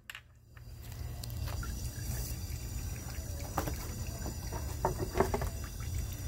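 Automatic transmission fluid trickling and dribbling from the edge of a loosened transmission pan as it is pulled away from the case, with a few light knocks as the pan is handled.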